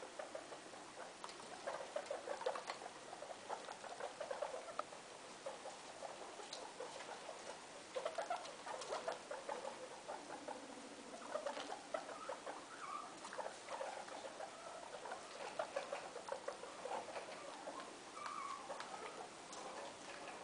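Guinea pigs rustling in loose hay and chewing it: a running patter of small, crisp clicks that come in clusters.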